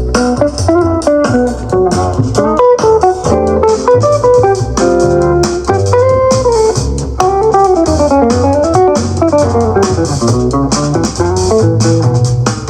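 Guitar-led music with a bass line played back through a JBL Charge 5 portable Bluetooth speaker at 60% volume, really quite loud.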